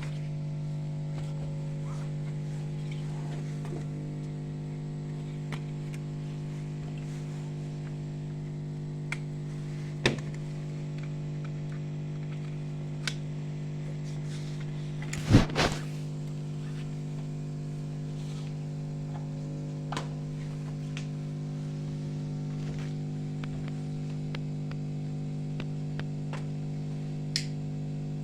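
Steady electrical hum with several overtones, broken by a few short clicks and knocks; the loudest knock comes about halfway through.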